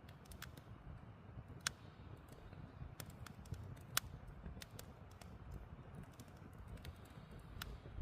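Wood campfire crackling: irregular sharp pops and snaps of burning logs over a low steady rumble, the two loudest pops coming about two and four seconds in.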